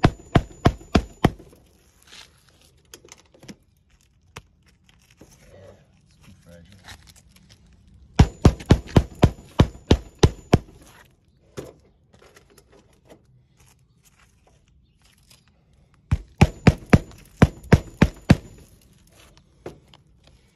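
Hammer nailing under a lifted asphalt roof shingle: quick runs of sharp blows, about three or four a second. One run ends about a second in, another comes around the middle, and a third comes near the end, with pauses between.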